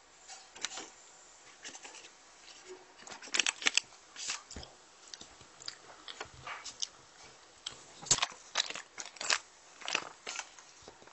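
Close-up eating sounds of a brownie being bitten and chewed: irregular wet, crunchy clicks and smacks coming in small clusters.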